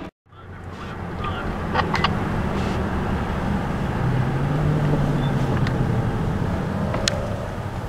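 Car engine running with road noise, heard from inside the cabin while driving; a low engine drone swells a little around the middle. A few light clicks sit over it.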